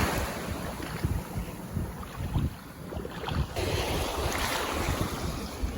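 Wind buffeting the microphone over small surf washing at the shoreline, with a wave swell rising about three and a half seconds in.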